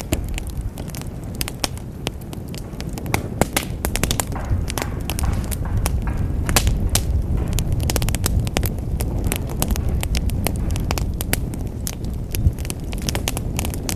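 Wood fire burning in a fireplace, crackling with many irregular sharp pops over a steady low rumble of the flames.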